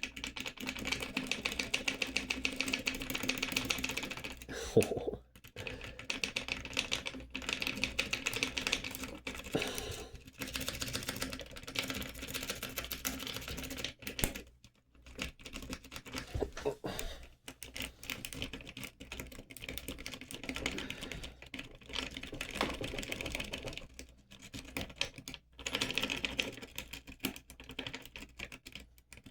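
Lock pick working rapidly over the pins inside a freshly repinned pin tumbler lock, a dense run of fine metallic clicking in spells of a few seconds with short pauses between; the pins do not set and the lock stays locked.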